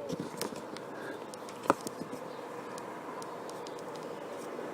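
Faint, irregular snicking electrical clicks over a low hiss, one sharper than the rest about a second and a half in. The uploader attributes the clicks to the auto-darkening welder's visor reacting to the sun's flashes.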